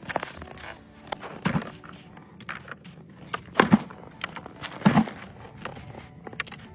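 Footsteps on snowy ground: a few irregular steps, the loudest about a second and a half, three and a half, and five seconds in.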